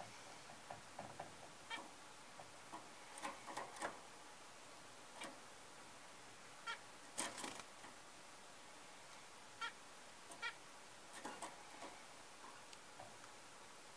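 Faint, scattered short peeps from zebra finches, a dozen or so spread irregularly, mixed with a few soft clicks and rustles.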